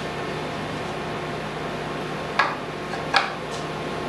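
Two short, sharp knocks less than a second apart, about two and a half seconds in: a plywood part being handled against a CNC router's wooden mount. A steady hum runs underneath.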